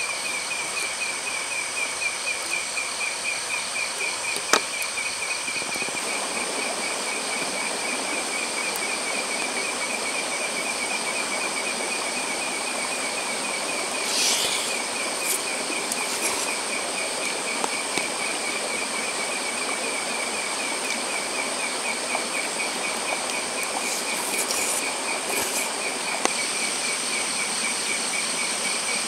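Night-time insect chorus: a fast pulsing trill with a high steady whine above it. A few brief clicks and scrapes of eating utensils break in, the sharpest about four and a half seconds in.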